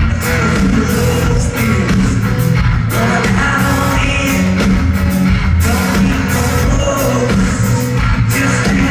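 Live country-rock band playing loudly: electric guitars, bass and a drum kit keeping a steady beat, with a male lead vocal, heard from the audience.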